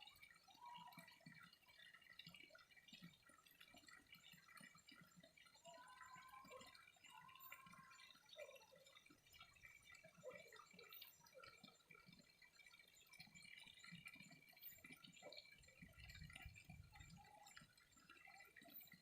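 Faint water dripping and trickling, with brief whistled bird notes and a soft chorus of distant small calls. A low rumble comes near the end.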